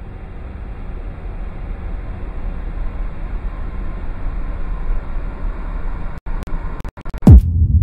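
Glitch-style intro sound effect: a rumbling static noise that swells up, stutters with brief cut-outs and clicks near the end, then drops into a loud boom that sweeps quickly down in pitch, leaving a low rumble.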